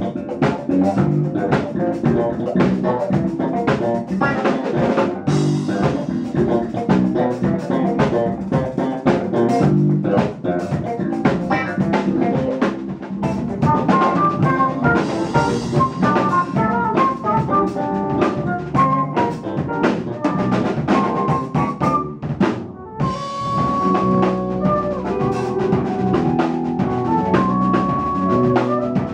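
Live jazz-funk band playing: drum kit, electric bass, electric guitar and keyboards together. In the second half a lead line of quick high notes plays over the band, with a short stop about 23 seconds in.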